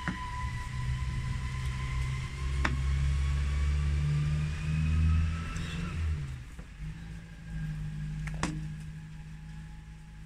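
A motor vehicle engine running, a low rumble with a thin whine over it, loudest about five seconds in and easing off a little after six seconds. A few sharp clicks from the cardboard box being handled.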